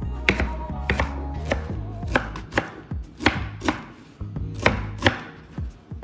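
Kitchen knife chopping a bunch of fresh herbs on a plastic cutting board: about nine separate knocks of the blade on the board, roughly half a second apart.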